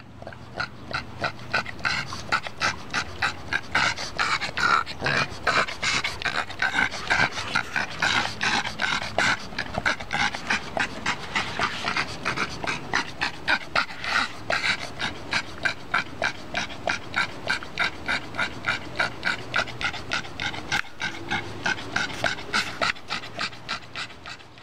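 A Boston Terrier panting hard in a rapid, steady rhythm, open-mouthed: she is overheated and panting to cool down.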